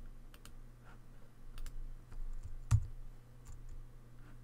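Several light, scattered clicks of a computer mouse and keyboard, the loudest with a dull knock a little past halfway, over a faint steady low hum.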